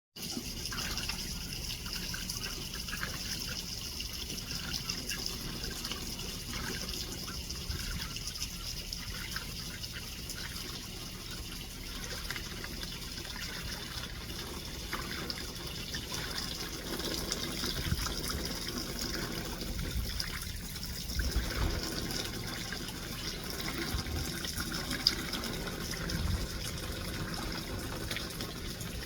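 Water trickling and splashing steadily, as in a small pool or pond where ducks are playing, with a few soft low thumps in the second half.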